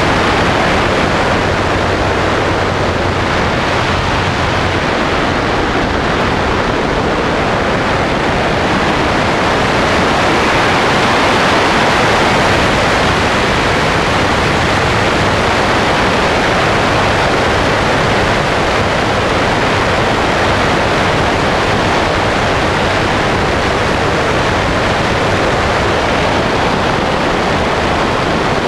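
Sonex light aircraft in flight, heard from a camera mounted outside on the wing: a loud, steady rush of airflow over the airframe with the engine and propeller drone underneath.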